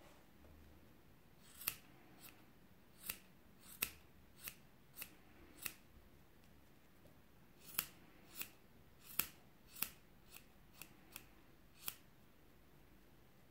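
Scissors snipping the fluffy ends of a brushed 100% cotton macramé-cord pompom to trim it: about fifteen short, crisp snips at an uneven pace, with a pause of a second or two in the middle.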